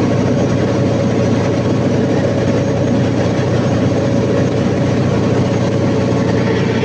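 Cummins KTA50 V16 diesel generator engine running steadily at a constant speed.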